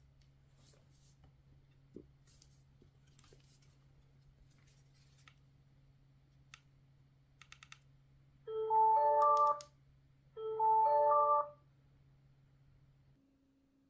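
A portable Ortizan Bluetooth speaker plays its short multi-note electronic chime twice, each about a second long and a second apart, after a few faint clicks of button presses. A faint steady hum underneath stops near the end.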